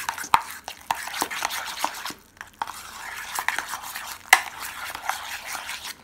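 Metal spoon stirring thick hummus in a stainless steel bowl: continuous wet scraping with sharp clicks where the spoon knocks the bowl's side, pausing briefly about two seconds in.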